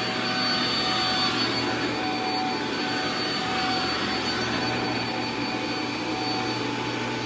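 Shark MultiFlex vacuum cleaner running steadily, a thin high whine over the motor and airflow noise.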